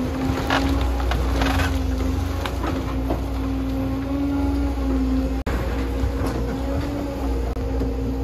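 Caterpillar 325F hydraulic excavator running steadily as a low drone while tearing into a wood-frame house, with wooden framing cracking and splintering several times in the first three seconds.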